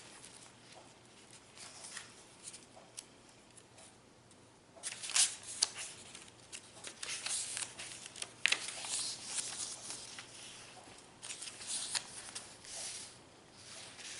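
Paper rustling as the pages of a handmade junk journal are handled and turned, in several short bursts with quieter gaps between.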